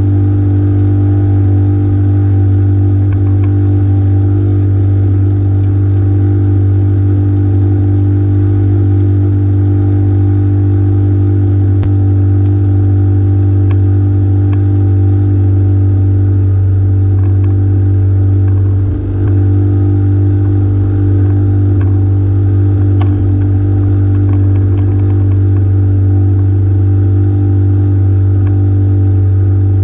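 Small engine running steadily at one constant speed, with a few faint knocks over it.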